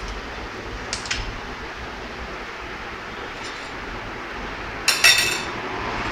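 Metal spoon clinking against stainless steel chutney bowls: a light clink about a second in and a louder, ringing clink about five seconds in, over steady background noise.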